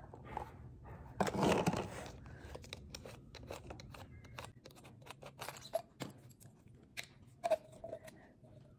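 Handling noise from unpacking a König & Meyer oboe stand: a loud rustling scrape about a second in, then scattered small clicks and scrapes as its plastic peg and folding legs are handled.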